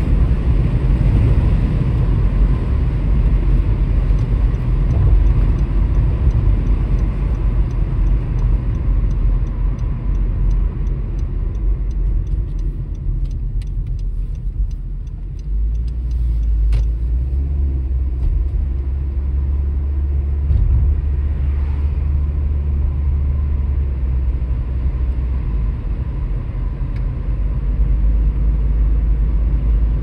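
Car road and tyre noise heard from inside the cabin while driving: a steady low rumble. A light, fast ticking runs for several seconds before the middle, and the rumble dips briefly and then settles lower as the car slows and carries on.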